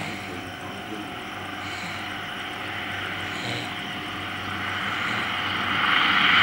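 Twin-turboprop airliner, a de Havilland Canada Dash 8, approaching to land with gear down: its engine and propeller noise grows steadily louder as it comes closer.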